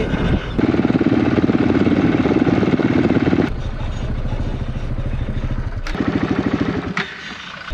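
Vehicle engine working hard on a sandy track, with a fast pulsing note. It rises loud about half a second in, eases after three and a half seconds, surges briefly again around six seconds and drops away near the end.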